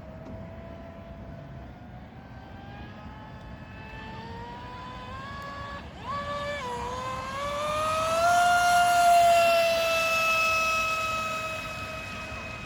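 Electric RC speedboat's TP 4050 2310kv brushless motor on 6S whining at speed. The whine climbs in pitch, dips briefly about six seconds in, rises to its loudest around nine seconds in, then eases slowly lower.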